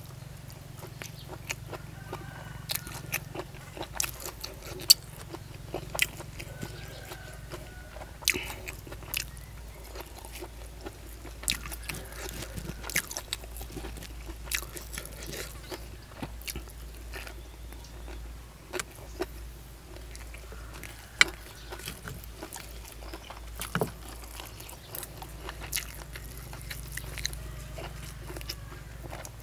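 Close-miked chewing and biting of crunchy food, with sharp crisp crunches coming irregularly, several every few seconds.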